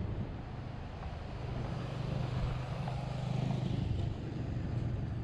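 Street traffic: a motor vehicle's engine running with a low hum that grows stronger about a second and a half in and eases off after about four seconds.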